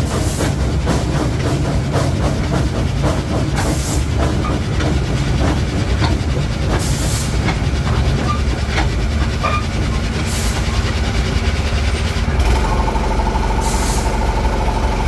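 Narrow-gauge train running on its track: a steady rumble with scattered clicks and knocks, and a short hiss about every three seconds.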